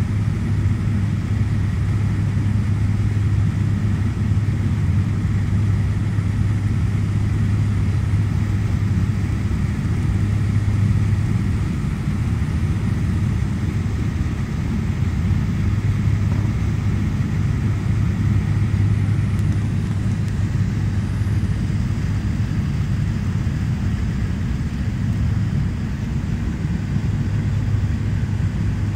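Cabin drone of a Fokker 50's twin turboprop engines and propellers in flight on approach, heard from inside the passenger cabin: a steady deep hum with one strong low tone over rushing airflow.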